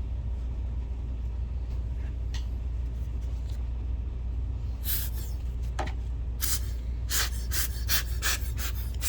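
A steady low hum, then from about five seconds in a quick run of short hissing bursts, about three a second by the end: cleaning work on the projector's insides.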